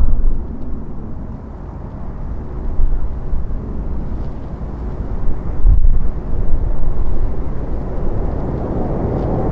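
Jet engine noise from an American Airlines Boeing 737-800 and its CFM56-7B turbofans: a steady low rumble that dips early on and swells again around the middle and end.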